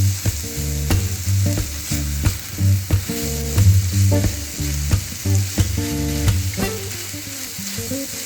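Eggplant and tomato filling sizzling in a frying pan while a spatula stirs it, with scattered taps and scrapes against the pan. Soft background music with changing low notes plays underneath.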